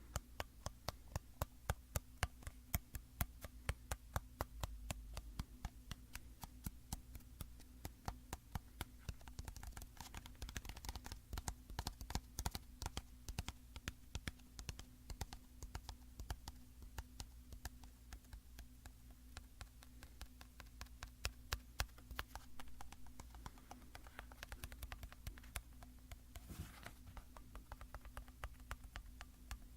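Fingertips or nails tapping on a bottle in quick, irregular taps, several a second, with a few short spells of rubbing or scratching on its surface.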